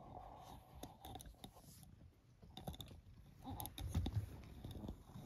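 Faint rustling and scattered clicks as a handheld phone moves against bedding, with a few low thumps a little under four seconds in.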